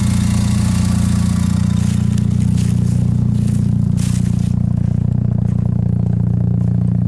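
Warmed-up Mazda engine idling steadily through its freshly leak-fixed exhaust, an even low hum. Scraping on gravel comes in over it about two to four and a half seconds in.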